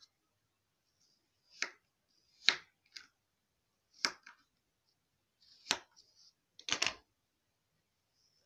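A knife cutting into kinetic sand in short, sharp strokes, about five of them a second or so apart, some followed by a smaller tap.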